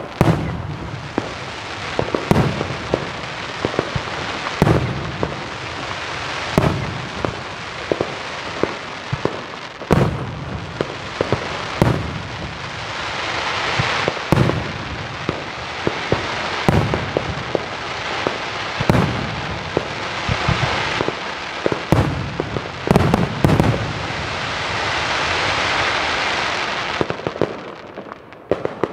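Aerial firework shells bursting with sharp bangs about every two seconds, over continuous crackling between the bangs. A quick cluster of bangs comes a little after the middle, and a dense crackle swells near the end before fading.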